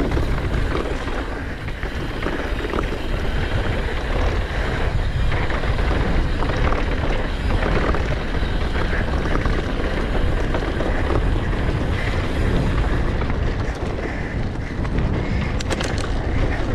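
Mountain bike riding fast down a dirt trail: wind rushing on the bike-mounted camera's microphone and tyres rolling over dirt, with a few sharp clicks near the end as the bike reaches a footbridge.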